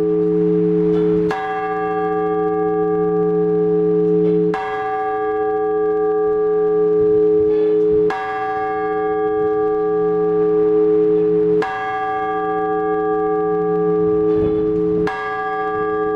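Orthodox church bell struck in slow, even strokes, five times about every three and a half seconds, each stroke's deep hum ringing on into the next.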